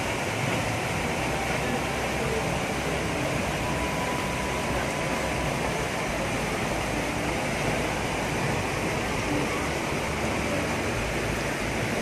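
Steady rush of running water, an even hiss with no breaks.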